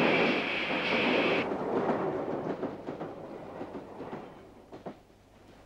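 Steam tank locomotive and train: a loud steady hiss over a running train that cuts off sharply about one and a half seconds in. Then a quieter train running on the rails, with scattered clicks, fades almost to nothing.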